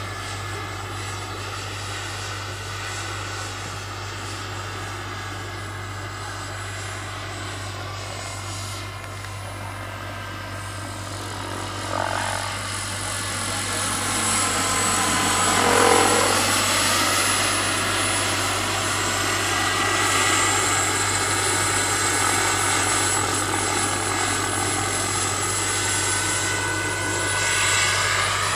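Scale Lama SA-315B model helicopter's turbine engine and rotors in flight: a steady high turbine whine over the rotor sound. The sound grows louder with a sliding pitch as the model passes close, loudest about halfway through, then swells again near the end.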